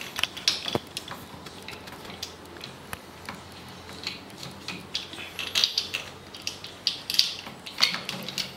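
Small metal clicks, taps and short scrapes of a torch height control box being fitted and bolted onto the end of a metal rail, coming in irregular bunches.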